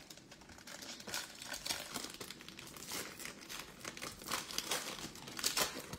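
Plastic wrapper of a trading-card pack crinkling and tearing as it is ripped open by hand, in a run of irregular crackles.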